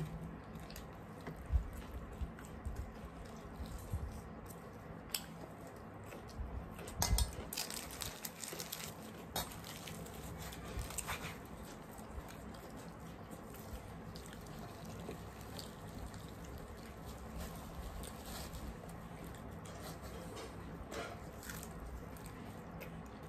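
Eating sounds of two people eating chole bhature by hand: scattered wet mouth smacks and chewing, with fingers tearing fried bhature and dipping into chickpea curry, heard as short irregular clicks over a steady low hum.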